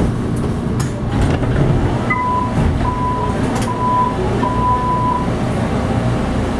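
Steady rumble and hum of a Tren Urbano train car standing at a station, with four beeps of the door-closing warning alarm, the last one held longer.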